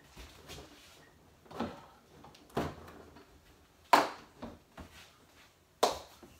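A large plastic water-cooler jug handled and set down on a table: a few hollow knocks and thumps, the sharpest about four seconds in as it lands, and another short sharp knock near the end.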